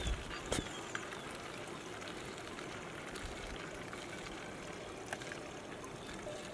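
Liquid poured in a thin stream from a plastic bottle into a small plastic bottle, a steady trickle, with a light knock about half a second in.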